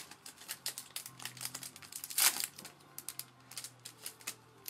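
Foil wrapper of a trading-card pack crinkling and tearing as it is opened, a run of quick crackles with the loudest about two seconds in.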